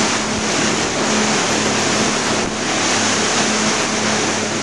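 Motorboat running at speed on open water: a steady engine drone under loud rushing of wind and water on the microphone.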